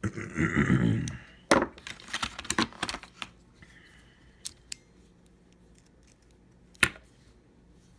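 Small metal hand tools from a mini tool set being handled: a scuffing rustle at the start, then a quick run of clicks and clacks, a couple of light ticks, and one sharp click near the end.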